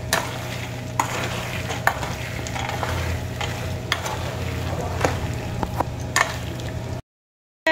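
Peanuts being stirred in a rice cooker's pot with a metal spoon: a steady rustle and rattle of nuts, with a few sharp clicks of the spoon against the pot. The sound cuts off abruptly near the end.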